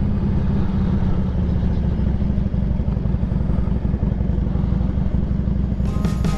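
Harley-Davidson V-twin motorcycle engine running steadily as the bike rides along, with music starting near the end.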